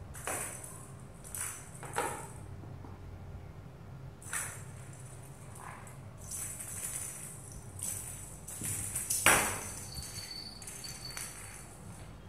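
Bell inside a cat's toy ball jingling in irregular bursts as kittens bat and chase it across a tile floor, with one sharp louder knock about nine seconds in.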